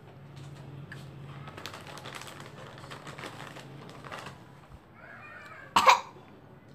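Crisp chips being crunched between the teeth: a fast, irregular run of small crackles, then a single loud, sharp sound about six seconds in.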